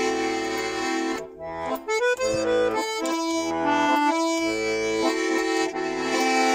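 Russian garmon (button accordion) playing an instrumental passage: a melody over sustained chords, with bass notes from the left-hand buttons, and a short break about a second in.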